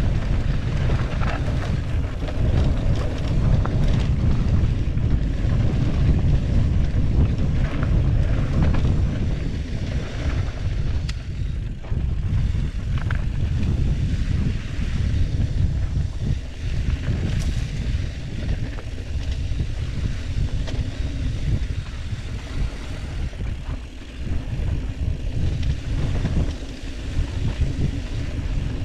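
Wind buffeting the microphone of a mountain bike riding fast down a dry dirt trail: a heavy, uneven low rumble, with tyre noise on the dirt and a few faint clicks from the bike.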